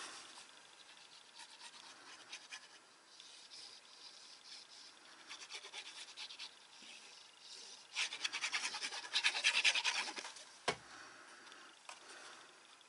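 Faint scratching and rustling of designer paper and cardstock being handled and rubbed while paper is glued onto a paper box, with a denser stretch of rubbing about eight seconds in and a single sharp tap just after it.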